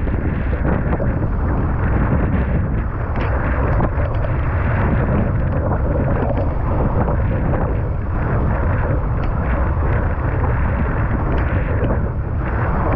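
Strong wind buffeting the microphone of a camera mounted on a windsurf rig under sail, a steady loud rumble with the water rushing past the board beneath it.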